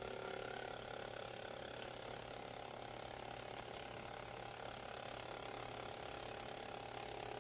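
Steady mechanical whirring from a small motor-driven mechanism, with several constant whining tones over a rattling hiss and no change in pace.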